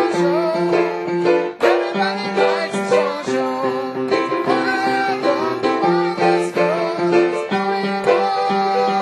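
Upbeat music with plucked strings, such as banjo or ukulele, strumming a steady rhythm under a melody line.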